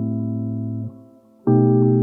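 Background music: sustained keyboard chords, one ending a little under a second in and a new, louder one starting about halfway through.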